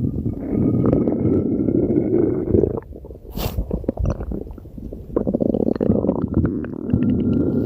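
A stomach growling: a long, low rumbling gurgle for nearly three seconds, a quieter pause with small clicks and a brief hiss, then another long rumble starting about five seconds in.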